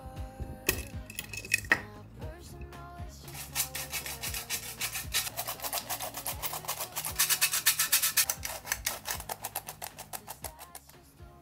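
A handheld squeeze-handle stainless steel flour sifter worked over and over, a fast run of rasping clicks that swells and then fades near the end. Before it, a few clicks and knocks as the clamp lid of a glass swing-top jar is opened.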